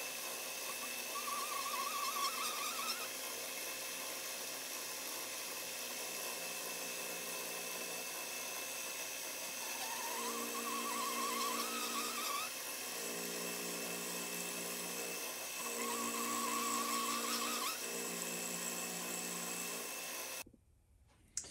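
Milling machine spindle running while a thin end mill, fed down by the quill, cuts into an aluminum block, with a wavering whine that rises in pitch during three passes. The end mill is not fully tight in the chuck, which the machinist blames for a mishap in this cut. The sound cuts off suddenly near the end.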